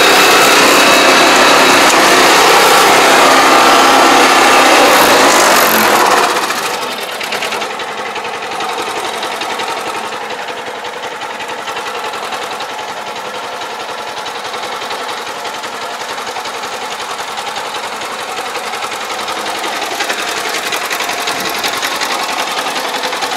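Engine and belt-driven spray pump of a riding pesticide sprayer running with a steady mechanical chatter. About six seconds in, the sound drops to a noticeably quieter, steady run.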